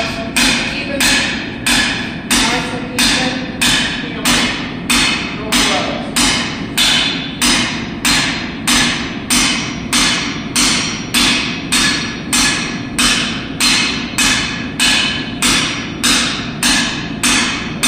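Blacksmith's hammer striking hot iron on an anvil in a steady rhythm, about two blows a second, each blow ringing briefly.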